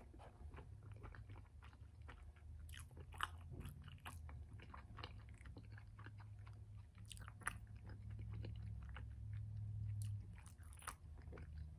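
Faint, close-miked chewing: soft wet mouth clicks and smacks of someone eating, over a low steady hum.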